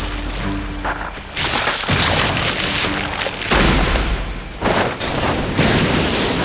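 Anime sound effects for a monstrous body transformation bursting out in jets of energy: loud rushing blasts over a low rumble. The blasts surge about a second and a half in, again at about three and a half seconds, and once more near five seconds.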